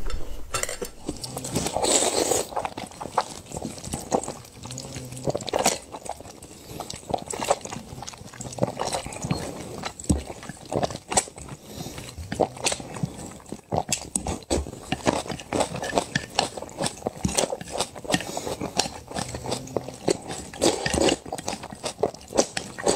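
Slurping and chewing of instant noodles: a continuous run of quick, irregular wet slurps and smacks as noodles are sucked up from chopsticks and chewed.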